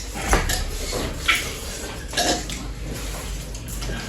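Cutlery clinking and scraping on a dish, with a few sharp clinks about a second apart.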